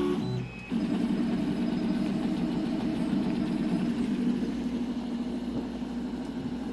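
Custom-built 3D printer running a print: a steady mechanical hum of its stepper motors and cooling fans, setting in under a second in after a few brief tones.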